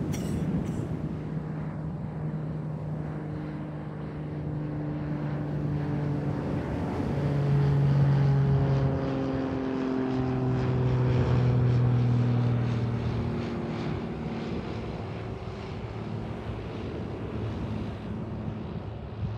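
Propeller aircraft engine drone passing over, its pitch falling slowly as it goes by and loudest in the middle, over surf and wind noise on the microphone.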